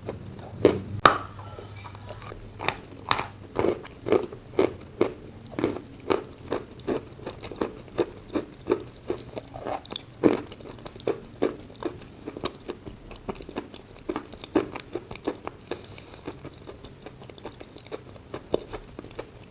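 Close-up chewing of dry chalk mixed with clay paste: a steady run of crisp crunches, about two a second, growing sparser near the end.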